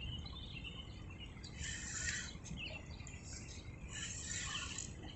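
Faint bird chirps over a low steady rumble of wind, with two short bursts of hiss about two and four seconds in.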